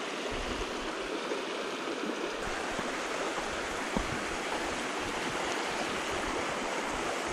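Steady rush of a small rocky creek's flowing water, with one faint knock about four seconds in.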